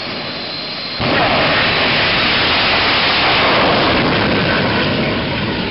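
Jet dragster's turbine engine whining as it sits staged, then about a second in it launches at full afterburner thrust: a sudden, very loud, steady rush of noise that eases slightly near the end as the car pulls away down the strip.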